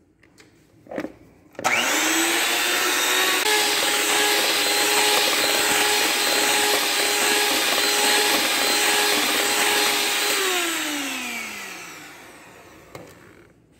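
Black+Decker electric hand mixer creaming butter and sugar in a bowl: switched on about two seconds in, its motor whine rising to a steady pitch with the beaters churning, then switched off near the end and winding down with a falling whine.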